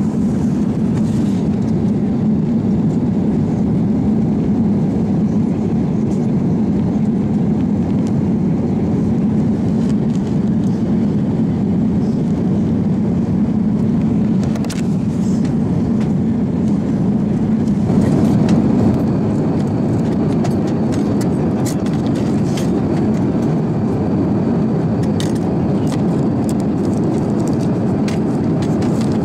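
Steady cabin rumble of an Airbus A350-900 in flight, heard from a window seat: engine and airflow noise with its weight low down. A few light clicks come in the second half.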